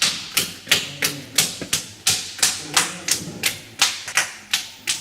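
A lump of potter's clay being beaten by hand in a steady rhythm, about three sharp slaps a second, to soften it and work the air out before throwing.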